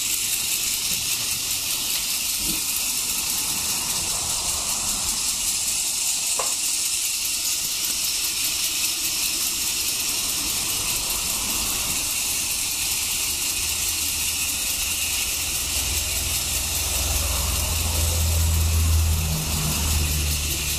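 Two battery-powered TOMY Plarail toy steam trains running on plastic track, their small motors whirring while the built-in clickers tick rapidly and steadily as they move. A low rumble builds up about two-thirds of the way through.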